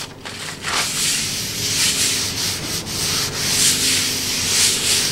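Dry paper towel rubbed back and forth over a rock maple butcher-block cutting board, a dry scratchy wiping in several strokes.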